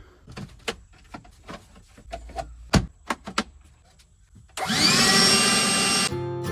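A few scattered clicks and knocks, one of them sharp. Then, about four and a half seconds in, a vacuum cleaner switches on, its motor whine rising as it spins up, and runs loudly for about a second and a half before it cuts off abruptly.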